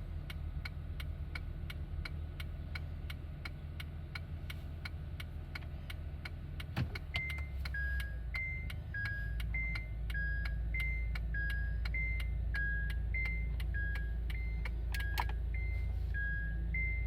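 Honda Odyssey reverse 'kin-kon' back-up chime: two tones, high then low, repeating about once a second, starting about seven seconds in just after a brief knock. The car's engine idles as a low hum, and a steady rapid ticking runs under the chime.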